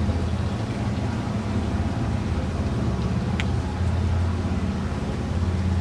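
Steady low mechanical drone, like running machinery or an idling engine, holding the same pitch throughout. A short, thin high squeak sounds once about three and a half seconds in.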